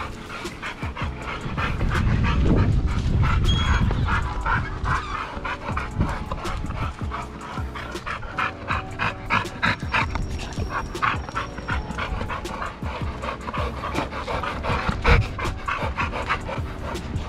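Two American Bully XL dogs panting hard and quickly, about three to four breaths a second, worked up from play, with background music running underneath. A single sharp thump comes near the end.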